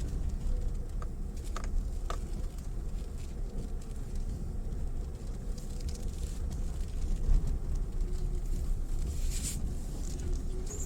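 Mitsubishi Pajero Mini driving slowly over a rough forest track: a steady low engine and road rumble, with a few sharp clicks and knocks from stones and bumps.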